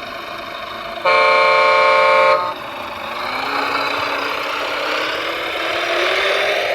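A horn sounds once, a steady multi-tone honk of about a second and a half, starting about a second in. It is followed by a motor running with a slowly rising whine.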